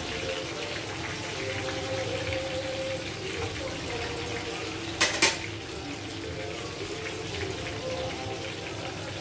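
Whole fish sizzling steadily as they fry in hot oil in a frying pan. About five seconds in there are two sharp knocks close together, like a utensil or pan striking metal.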